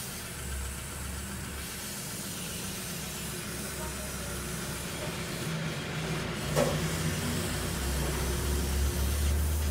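Steady hiss over a low rumble that swells in the second half, with one short knock about six and a half seconds in.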